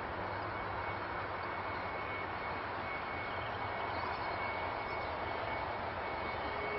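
Steady hiss of an air traffic control radio channel between transmissions, with a faint steady high whine in the background.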